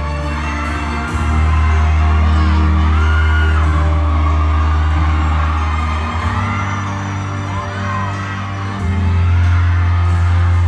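Amplified music over a PA system, with loud held deep bass notes that change every few seconds, and fans whooping and screaming over it.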